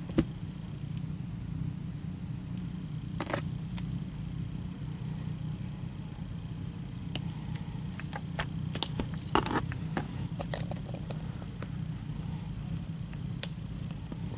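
Box cutter with a new blade slicing through a molded WeatherTech cargo liner: a few short, scattered scraping and clicking sounds, the clearest about three seconds and about nine seconds in, over a steady low hum and hiss.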